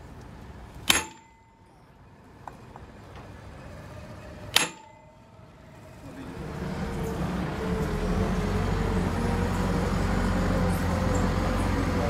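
Two sharp metal strikes with a short ring, about four seconds apart. Then, about halfway through, a motor starts running and builds to a steady drone.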